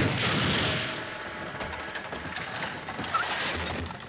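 Sound effects of a military truck crashing in an animated film. A loud, noisy crash fades over the first second, then lower rumbling follows, with a few sharp knocks about three seconds in.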